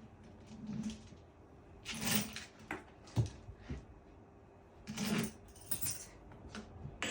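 Irregular handling noises: rustles, light clicks and knocks, with a low thump about three seconds in.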